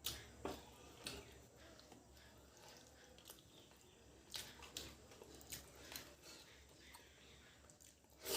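Faint eating sounds: chewing with scattered short, wet mouth clicks and smacks, about one every second or so, a little louder at the start and near the end.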